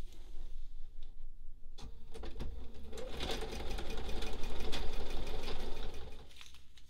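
Bernina sewing machine stitching a seam: after a couple of seconds of fabric handling it starts up about two seconds in, runs a rapid, steady burst of stitches for about four seconds, and stops near the end.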